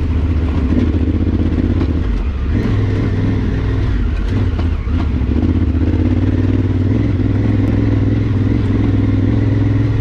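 Adventure motorcycle engine running steadily while riding up a rough, rocky dirt trail. The engine note dips briefly twice, about two and five seconds in.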